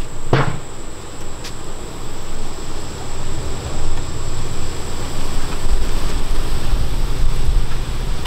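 Honeybees humming at crowded hive entrances, a steady drone. A sharp click comes just after the start, and a low rumble builds in the second half.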